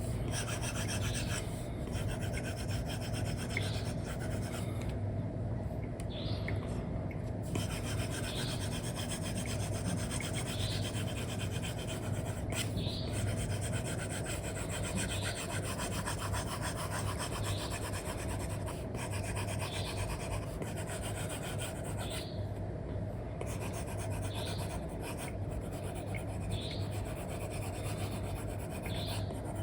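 Stylus drawing on a tablet: the Elecom nib of an Apple Pencil rubbing and scratching across a paper-like screen film in steady strokes, over a low steady hum.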